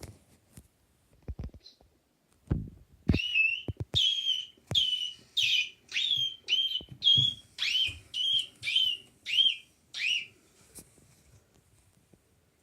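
A cat giving a quick run of about a dozen short, high chirping calls, each with a little rise and fall in pitch, a few low knocks coming just before.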